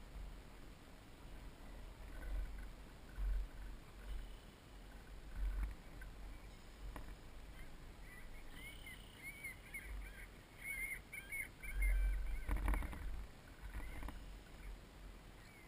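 Water lapping and slapping against the hull of a small model sailboat, heard from a camera on its deck, with irregular low thumps from the hull and wind. From about halfway through, birds call briefly in a series of short, wavering calls.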